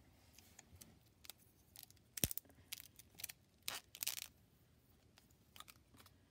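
Faint handling noises of an Apple Pencil and its cardboard box: scattered light clicks and taps, the sharpest one about two seconds in, and a brief rustle around four seconds in.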